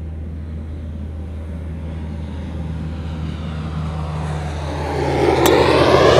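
Airplane flying low overhead, growing louder over the last couple of seconds over a steady low hum, with a single sharp click near the end.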